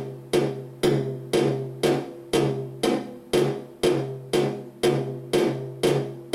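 A software drum kit in Sonar X1 playing a looped MIDI bongo pattern, hand-drum strokes about twice a second. The same file is playing from a track and from Matrix View at once, and some hits sound doubled, slightly out of step. This is the timing drift of the Matrix View bug.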